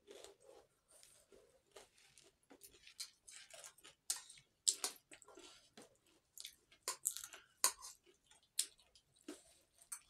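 Crisp, irregular crunching of puffed rice (jhal muri) being chewed with the mouth close to the microphone, in quick crackles and sharp clicks, with the rustle of fingers gathering the dry puffed rice on the plate.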